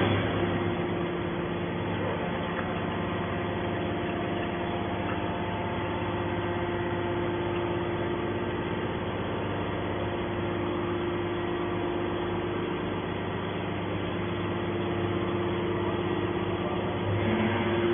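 A machine running steadily: an even hum with a few held tones, unchanged throughout.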